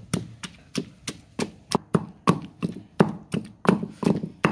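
Wooden pestle pounding onion, garlic and green chilli chutney in a stone mortar, a steady beat of about three strikes a second.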